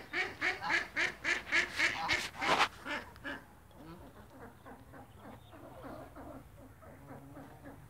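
Domestic ducks quacking in a rapid series, about four calls a second, loud for the first three seconds or so, then softer, scattered quacks.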